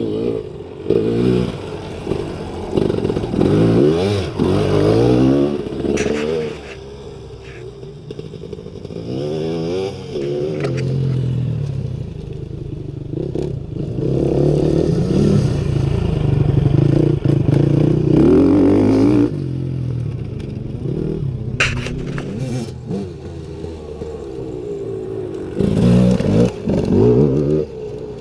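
Enduro dirt bike engine revving up and easing off over and over as the bike is ridden around, its pitch rising and falling in long swells.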